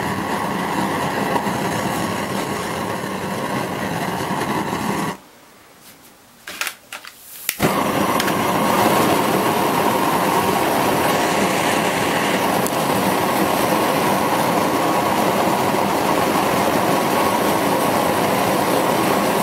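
Homemade single-jet propane burner, a 1.2 mm orifice firing into a steel burn tube, burning with a steady rushing noise. About five seconds in it goes quiet; a few clicks follow, and about seven and a half seconds in it lights again, louder, at full flame.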